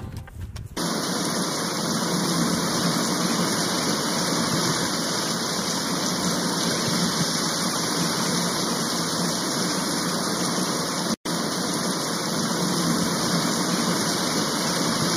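A steady, even rushing noise with no distinct events, starting almost a second in and cutting out for an instant about eleven seconds in.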